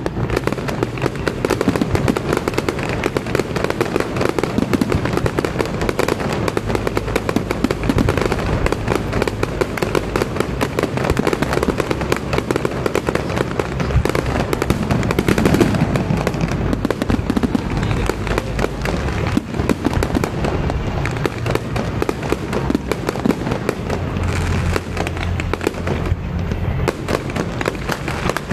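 Aerial fireworks going off in a dense, continuous barrage of bangs and crackles, with no pause.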